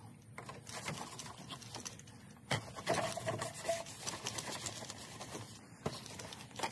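Cloth being wiped over plastic trim and painted metal: soft rubbing with scattered light clicks and taps.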